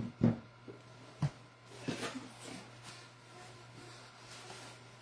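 Quiet handling of cardboard and paper packaging being unpacked, with a single sharp knock about a second in and a few faint rustles after it.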